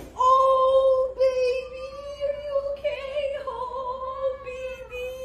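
A tabby cat's long, drawn-out crying yowl, held at a nearly steady pitch with a slight waver and brief breaks, while it is held and hugged.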